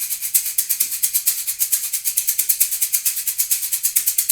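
Meinl shaker with a faceted shell played in a steady groove: fast, even strokes of bright, hissing rattle, a very soft, gentle shaker sound.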